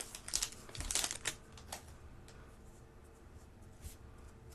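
Trading cards being handled and shuffled through, with a run of crisp crinkling rustles over the first couple of seconds, then only faint handling noise.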